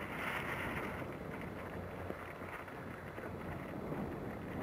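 Steady wind noise on the microphone over lapping water, with a brief hiss of spray in about the first second as a heeled model yacht's hull cuts past close by.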